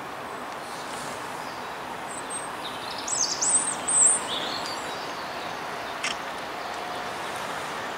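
A few short, high bird chirps rising and falling about three to four seconds in, over a steady outdoor background hiss.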